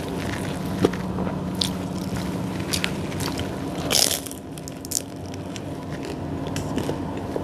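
Close-miked eating of a baked pizza bread roll: soft chewing clicks, then one loud crisp bite into the crust about four seconds in. A steady low hum runs underneath.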